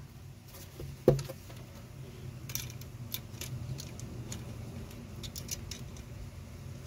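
Small metal clicks and taps of an electronic cabinet lock's steel bracket and screw being handled, as a cordless drill's driver bit is set against the screw head, with a single knock about a second in. A steady low hum runs underneath.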